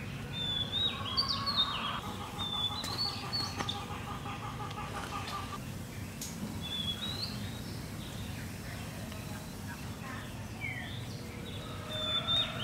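Birds chirping: short, high, rising and falling phrases repeat throughout, with a fast run of repeated lower notes in the first few seconds, over a steady low background rumble.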